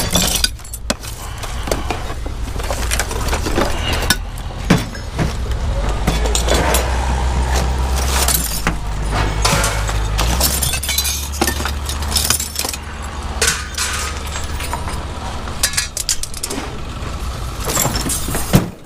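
Scrap metal pieces being tossed onto a scrap pile, clanking and clattering in irregular hits, with an engine running low underneath.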